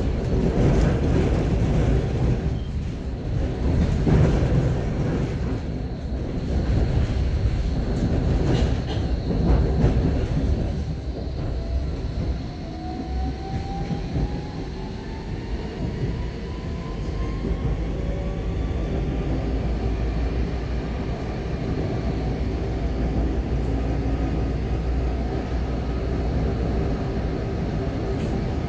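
Tram running, heard from inside the car: a steady low rumble with rattling and knocks over the first ten seconds. About halfway through, the traction motors give a rising whine as the tram picks up speed.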